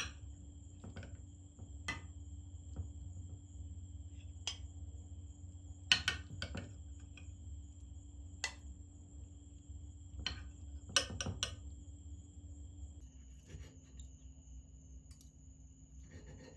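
A metal serving spoon clinking and scraping against a glass baking dish as chicken and vegetables are scooped out, in scattered sharp clinks with the loudest around six and eleven seconds in. Near the end, cutlery clinks on a ceramic plate.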